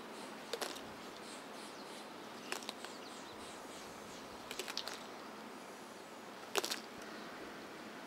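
Faint steady outdoor hiss with a few short, sharp clicks spaced about two seconds apart.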